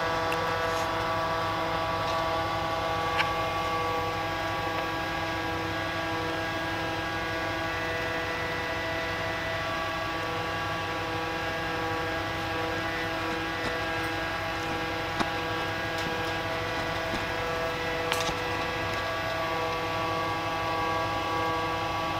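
Steady, unchanging ship's machinery drone made of several held tones, with a few sharp clicks.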